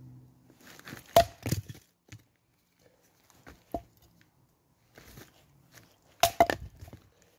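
A split piece of wood being chopped for kindling on a chopping log: two quick bursts of sharp cracking knocks, about a second in and about six seconds in, with a single lighter knock between them.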